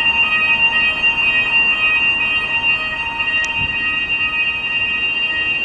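An electronic alarm sounding continuously, several steady high tones held without a break. A sharp click comes about three and a half seconds in.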